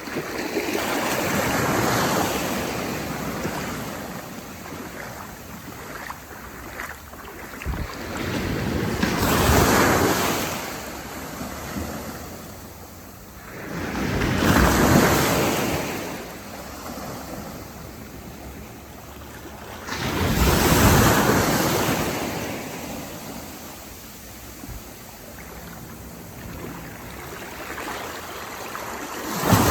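Sea waves breaking and washing up the shore, swelling into four rushing surges several seconds apart with another starting at the very end, over a steady wash of water and light wind on the microphone.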